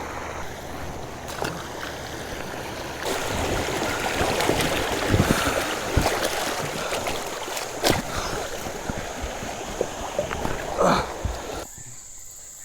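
Steady rush of flowing river water around a kayak, with two sharp knocks partway through.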